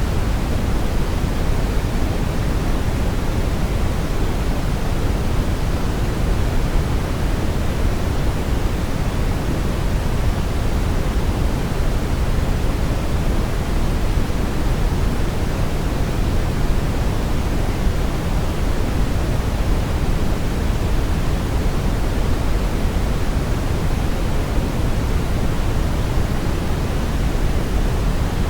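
Steady synthetic brown noise: an even, unchanging rumble-like hiss with most of its energy in the low end.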